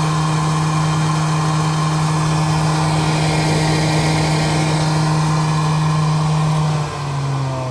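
Small electric fans and a blower running steadily, a constant motor hum over a rush of moving air. About seven seconds in the hum drops to a lower pitch and gets a little quieter, as if a motor slows.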